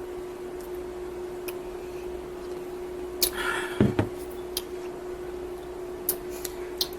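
Soda being drunk from cups, with a few small clicks and taps. About halfway through there is a louder click, a brief rustle and a short low knock, all over a steady low hum.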